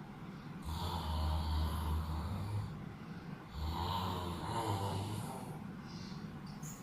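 Snoring during sleep: two long snores, each about two seconds, with a short pause between them.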